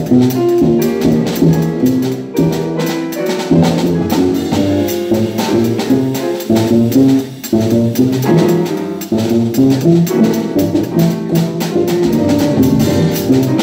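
Jazz piano trio playing live: grand piano, double bass and drum kit together.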